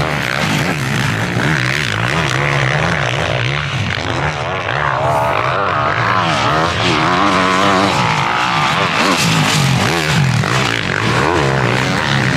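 Motocross bike engine revving hard and backing off over and over, its pitch rising and falling every second or so as the rider works through the sand track.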